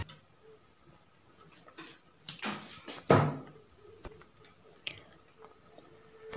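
Pen and hand moving on a drawing sheet: a few short rustling scrapes, the loudest two about two and three seconds in, then a couple of faint clicks.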